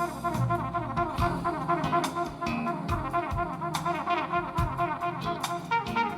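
Jazz song played back through hi-fi bookshelf speakers with a subwoofer: brass horns play over drums, with no singing.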